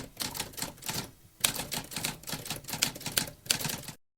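Typewriter keys typing in rapid, irregular keystrokes, with a short pause about a second in. The typing cuts off shortly before the end.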